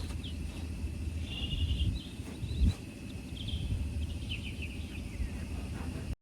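Outdoor ambience: birds chirping in a few short bursts over a low rumble, cutting off abruptly near the end.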